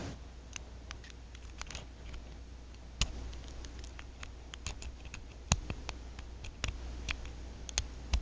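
Light, irregular clicks of a pick and tension tool working the rotating discs of a Brinks R70 disc-detainer padlock as the discs are turned and set, with a few sharper clicks about three and five and a half seconds in.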